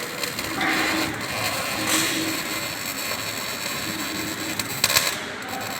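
Workshop tool noise: a steady crackling hiss, with a short low hum that comes and goes several times and a sharp knock near the end.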